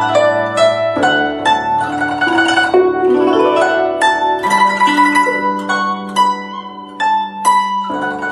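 Background music on a plucked string instrument, zither-like: a melody of quickly plucked notes, each ringing and fading into the next.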